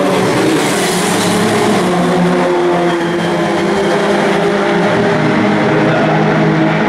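Engines of two open-wheel single-seater race cars running hard as they drive through a corner at racing speed. The engine notes hold fairly steady and loud throughout.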